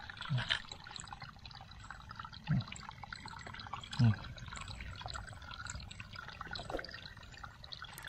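Water dripping and trickling in a woven bamboo basket as hands sort through wet weeds and mud, with a steady crackle of small ticks and three short, low plops.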